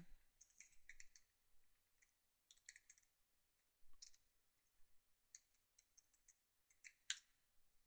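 Faint computer keyboard typing: light, irregular keystroke clicks in small clusters as an email address and password are typed in, with one sharper click near the end.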